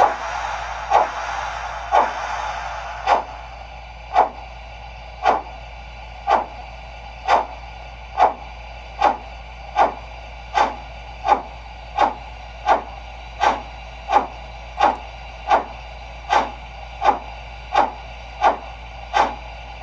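An LGB HSB Mallet G-scale model locomotive's sound system playing steam exhaust chuffs through its loudspeaker. The evenly spaced chuffs quicken from about one a second to about three every two seconds as the engine picks up speed. A steam hiss accompanies the first few seconds and fades out.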